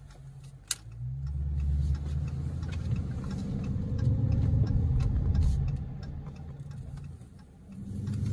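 Dodge Charger SRT's V8, heard from inside the cabin, pulling away from a stop through a U-turn: a low engine rumble that swells about a second in, eases off around six to seven seconds, and picks up again near the end. A couple of sharp ticks come just before the engine note rises.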